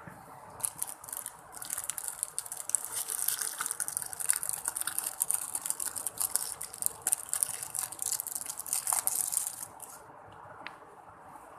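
Slime being squeezed and worked in the hands, making a dense wet crackling and popping that starts about half a second in and stops about ten seconds in.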